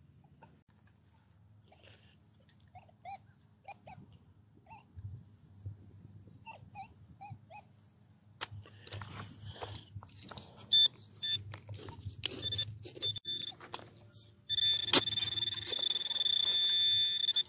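A digging tool knocks and scrapes in sod and soil. Then a handheld metal-detecting pinpointer sounds a high beep, first in short pulses and then without a break for about the last three seconds, which signals a metal target right at its tip.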